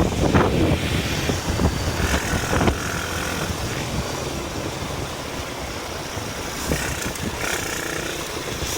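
Panther 125cc ATV engine running, louder in the first second or so and then settling to a steady lower level.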